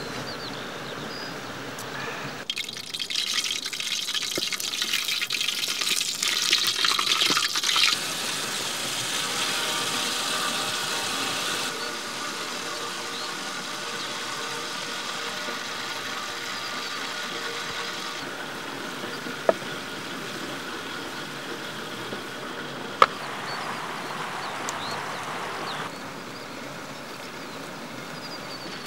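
Hot oil sizzling and crackling as a large khuushuur pastry deep-fries. It is loudest in the first several seconds and comes in a few cut-together stretches, with two sharp knocks in the second half.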